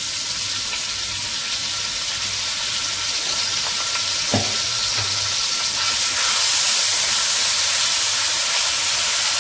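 Ginger-garlic paste sizzling in hot oil in a frying pan: a loud, steady frying hiss that starts as the paste goes in and grows a little louder about six seconds in, with a couple of light knocks along the way.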